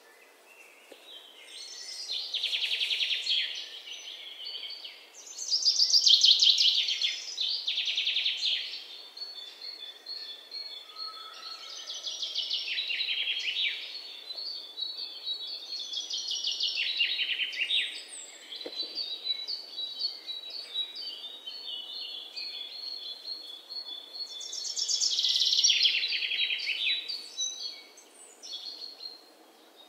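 Red-whiskered bulbul nestlings begging: bouts of rapid, high-pitched chirping a second or two long, repeated several times, while they gape for food.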